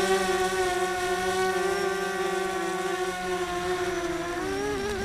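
Brushless motors and propellers of a Quadrysteria Mini Mamba V2 racing quadcopter, heard from its onboard camera, holding a steady high whine. Near the end they spool down in a falling glide as the quad lands and the throttle is cut.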